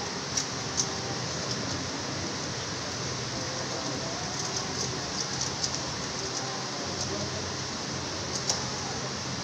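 Low murmur of a seated congregation quietly saying names under a steady hiss of room noise. A few short clicks sound, two sharp ones in the first second and one near the end.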